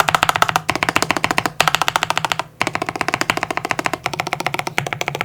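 Mechanical keyboard with linear switches (Alpacas with UHMWPE stems) on a polycarbonate plate, keys struck in a fast stream of clacks. There are brief pauses about two-thirds of a second, a second and a half, and two and a half seconds in.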